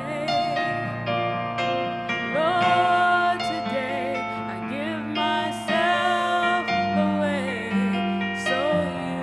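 Gentle piano-led church music, with a melody line above it that bends and wavers in pitch.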